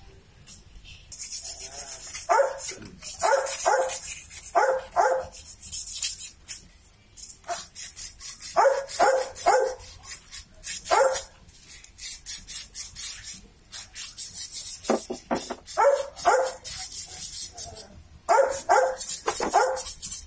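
A dog barking repeatedly in quick runs of two to four barks, with pauses between the runs. A fast, scratchy hiss runs behind the barks for much of the time.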